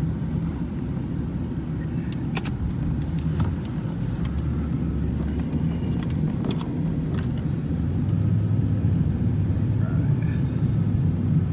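Ford Thunderbird's 4.6 L V8 engine running steadily with a low rumble, its tone shifting and getting a little louder about eight seconds in as the car pulls away.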